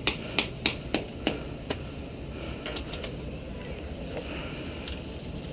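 Airsoft gun firing single shots: a string of sharp cracks, about three a second, for the first two seconds, then a few fainter shots from farther off.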